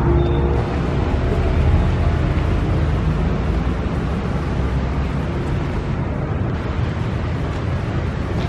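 Yellow diesel multiple unit approaching on the track, its diesel engine giving a steady low rumble.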